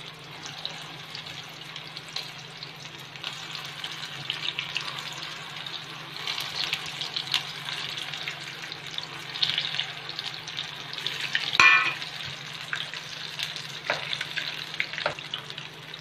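Chicken kola urundai (spiced minced-chicken balls) deep-frying in hot oil: a continuous crackling sizzle as the balls are dropped in one after another, growing denser around the middle. A steady low hum runs underneath, and there is one brief sharp sound about three-quarters of the way through.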